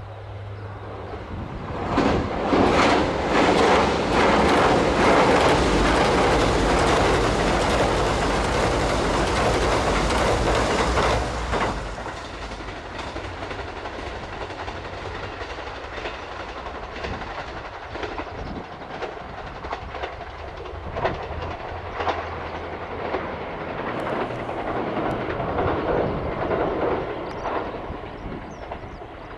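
A KiHa 189 series six-car diesel multiple unit passes close by: diesel engines running and wheels clacking over rail joints. It builds over the first two seconds and is loud for about ten seconds. Then it drops away and fades as the train recedes, with scattered clacks still heard.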